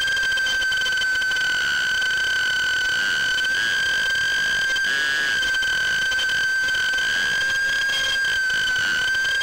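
The brushless motors of a Mobula6 HD tiny whoop FPV drone whine in flight at a high, steady pitch, heard from the drone's own onboard camera. The pitch wavers slightly a few times as the motor speed shifts.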